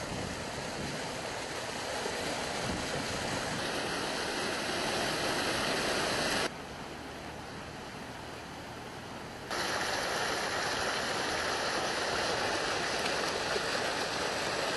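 Stream swollen with muddy floodwater after heavy rain, rushing along its bed with a steady hiss. For about three seconds in the middle it turns quieter and duller, then comes back at full level.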